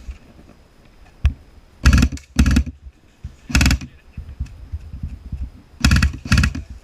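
Airsoft gun firing five short automatic bursts, close by, each about a third of a second long, mostly in pairs half a second apart. A single sharp click comes just before the first burst.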